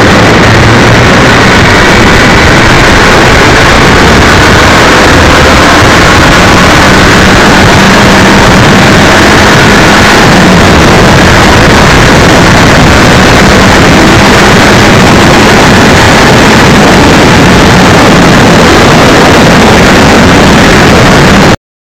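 Motorcycle engine running under a heavy rush of riding noise, recorded so loud that it is overloaded and distorted throughout. It cuts off suddenly near the end.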